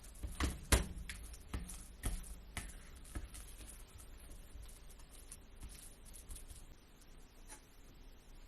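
Irregular light taps and clicks of kitchen utensils during food preparation, busiest in the first few seconds and then sparser.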